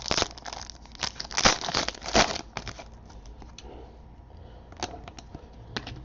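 Crinkling and rustling of trading-card pack wrappers and cards being handled, loudest in the first couple of seconds, then quieter with a few soft clicks.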